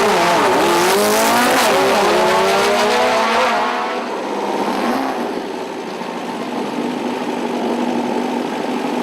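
Volkswagen car engine revving hard with loud tyre noise for the first few seconds, the pitch swinging up and down, then easing off to a steadier, quieter drone.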